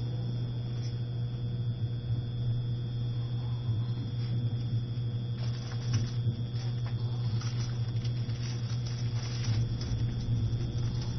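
Interior running noise of a JR E653 series electric train travelling slowly: a steady low rumble with a faint constant whine and occasional light rattles.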